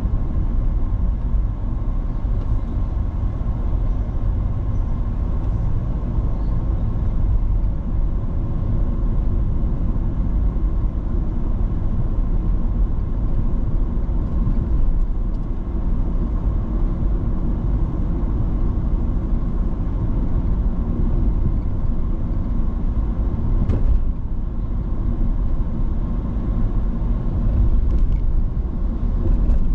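A car being driven: steady, unbroken road and engine noise that is heaviest in the low end, a constant low rumble.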